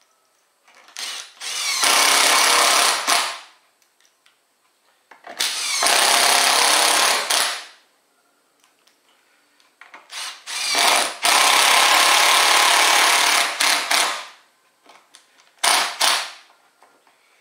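Cordless impact driver with a Phillips bit driving screws through a metal mounting plate into a wooden plank: three long runs of two to three seconds, with short bursts between them as each screw is started and seated.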